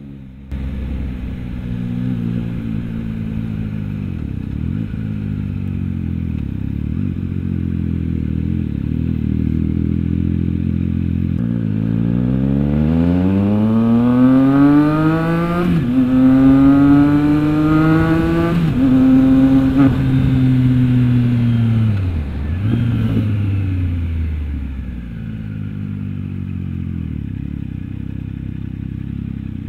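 Triumph Trident 660's inline three-cylinder engine through an aftermarket Orion exhaust, cruising at low revs, then accelerating hard about twelve seconds in, with the revs climbing and dropping back at two upshifts. It then rolls off the throttle and slows, settling back to a low, steady run near the end.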